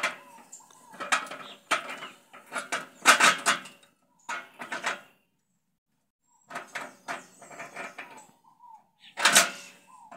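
Irregular clicks, knocks and short scrapes of a cast-iron pillow block bearing housing being handled and slid onto threaded bolts, with a brief silence about five seconds in.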